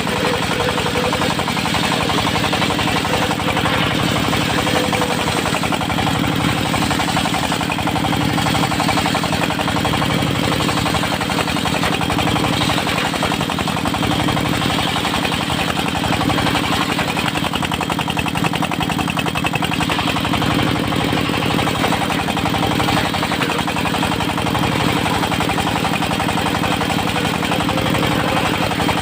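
Diesel engine of a portable circular sawmill running steadily while the saw blade cuts through a large teak log, a fast even engine beat under a dense, level noise of sawing.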